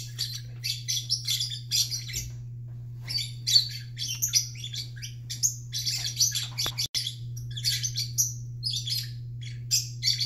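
Peach-faced lovebirds chirping rapidly and almost without pause, in many short, high chirps, over a steady low hum.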